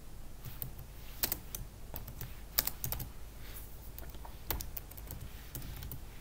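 Computer keyboard keystrokes: a command being typed in short, irregular runs of clicks.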